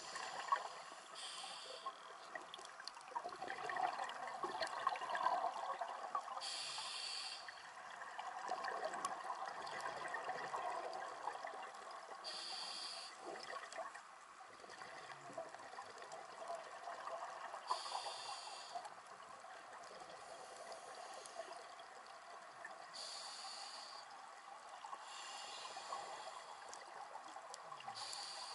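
A scuba diver breathing through a regulator underwater: a short hiss of the demand valve on each inhalation, about every five to six seconds, with the burbling of exhaled bubbles between breaths.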